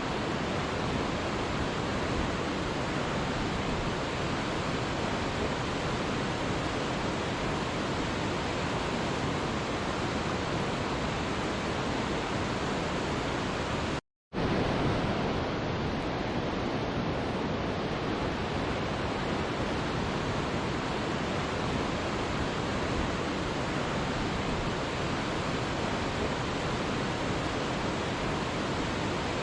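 Waterfall rushing steadily, an even, unbroken wash of falling water. A split-second gap of silence cuts in about halfway through, then the rush resumes.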